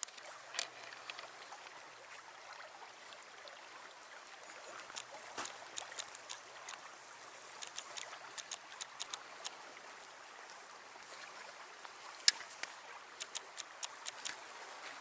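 A creek's water running steadily, with scattered small sharp ticks and drips over it, the sharpest one about 12 seconds in.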